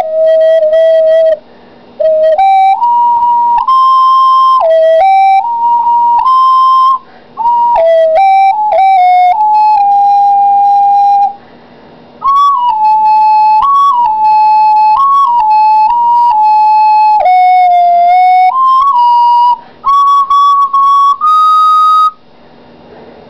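Five-hole sweet potato ocarina playing a melody of held notes that step up and down, with a few short breaks between phrases. The tune ends near the end. It sounds rough through a low-quality camera microphone.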